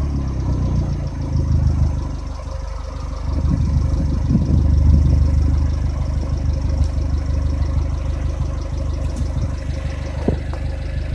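Abarth Punto Evo's 1.4 turbocharged four-cylinder engine on its stock exhaust, coming down from a rev and idling steadily, with a slight swell in revs around four seconds in. A single click near the end.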